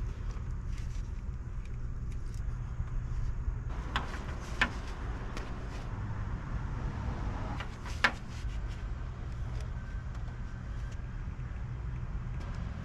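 Handling noise from work on the wiring: a few sharp clicks and small metallic jingles, the loudest about eight seconds in, over a steady low rumble.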